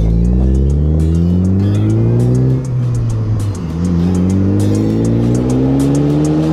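2018 Ford Focus ST's turbocharged 2.0-litre four-cylinder through a Mountune cat-back exhaust, accelerating hard away from the camera: the note rises steadily, drops briefly at an upshift about three seconds in, then climbs again through the next gear.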